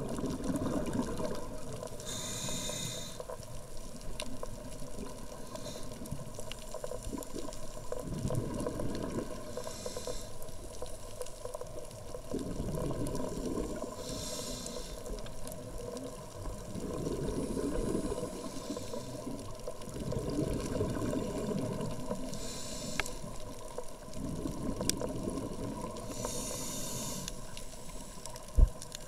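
Scuba regulator breathing heard underwater: a short hissing inhale about every four seconds, each followed by a low rumble of exhaled bubbles. A few faint clicks, and one sharp knock near the end.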